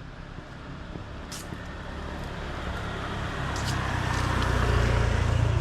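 A motor vehicle approaching and passing close, its engine hum and tyre noise growing steadily louder to a peak near the end.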